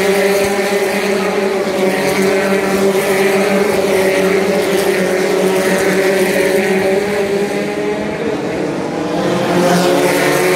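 Open-wheel single-seater race car engines running at speed as the cars pass, a continuous engine note with slow rises and falls in pitch. It grows louder near the end, with the pitch climbing as another car comes close.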